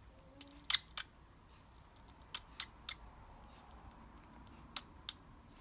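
A sick budgerigar's short, sharp, high-pitched clicking coughs and sneezes, seven in small clusters, the loudest about a second in. These are unusual sounds, a sign that the bird is unwell.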